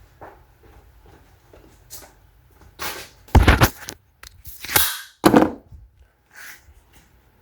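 A series of sharp knocks and clatters, three of them loud, about 3 to 5.5 seconds in, with lighter clicks before and after.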